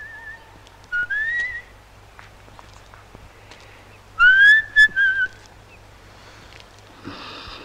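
A man whistling a few short phrases of a tune, each gliding upward in pitch, the loudest about four seconds in.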